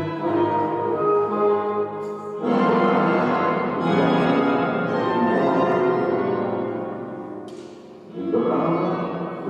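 Live orchestral music of held, organ-like chords. A loud new chord comes in about two and a half seconds in, then fades to a quiet dip with a short high swish near the end, before the ensemble comes back in.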